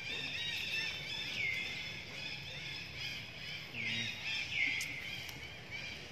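High-pitched animal calls: a quick run of short rising-and-falling chirps throughout, with three longer calls that slide down in pitch and then hold, about a second, four seconds and four and a half seconds in.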